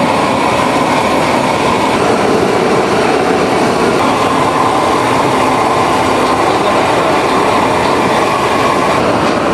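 Large gas torch flame blasting steadily against stacked copper pots as they are heated, a loud even rushing noise.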